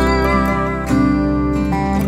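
Background music led by guitar, with pitched notes changing every fraction of a second and some sliding.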